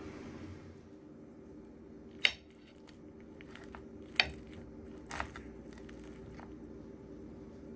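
Kitchenware clinking: three sharp clinks about two, four and five seconds in, with a few lighter taps, over a steady low hum.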